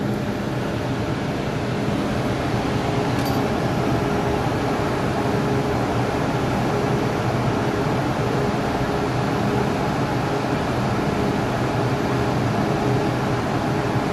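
Steady hum of a stationary MTR M-Train's air conditioning and ventilation, heard from the doorway while the train stands at an underground platform with its doors open.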